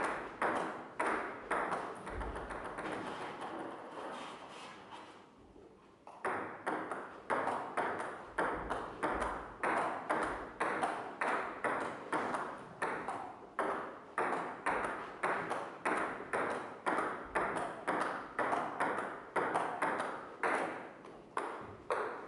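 Repeated ringing pings, about two a second, each struck sharply and dying away. They fade out about two seconds in and start again after a few seconds.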